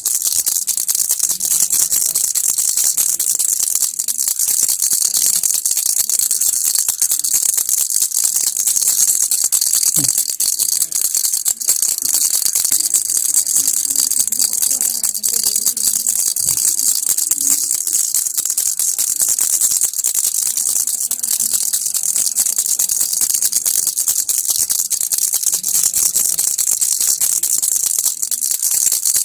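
Baby's toy rattle shaken without a break: a dense, fast, hissy rattling of beads inside the rattle.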